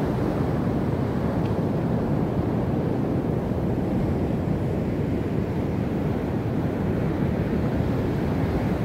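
Steady low rumble of ocean surf mixed with wind buffeting the microphone.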